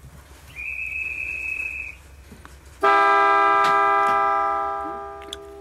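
A short, steady high-pitched buzzer tone, then a train horn sounding once, starting abruptly and fading away over about two seconds.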